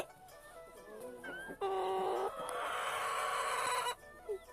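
Chickens: a few faint high peeps, then one louder drawn-out call about one and a half seconds in that turns harsh and lasts about two seconds.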